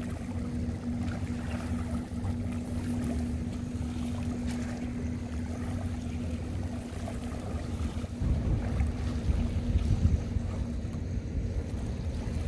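Steady low drone of a boat's engine across the water, holding one even tone, over a low rumble of wind on the microphone that swells for a few seconds about eight seconds in.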